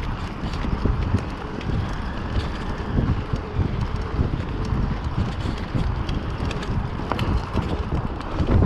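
Mountain bike rolling over a dirt trail: a constant low tyre rumble with irregular rattles and knocks from the bike over bumps, and a harder thump near the end. Wind buffets the camera microphone throughout.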